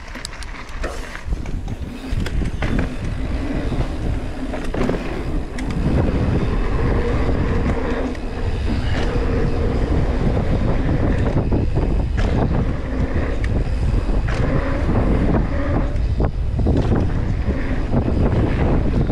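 Mountain bike ridden fast down a dirt jump line: wind buffeting the bike-mounted camera's microphone over the rumble of tyres on packed dirt, with scattered knocks and clatters from the bike over the jumps. It grows louder about six seconds in as speed builds.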